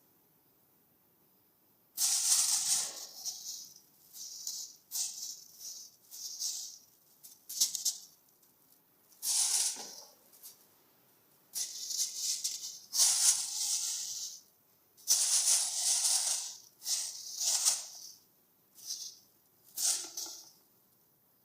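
Plastic crinkling and rustling in irregular bursts as a kitten plays with it, starting about two seconds in.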